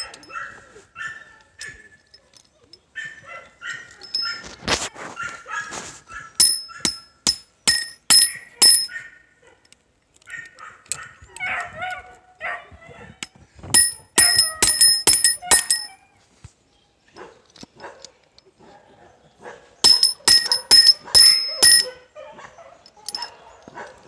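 A hammer striking a steel cold shut link closed against a wood stump, in three runs of quick blows that ring like metal. Between the runs a dog barks and whines.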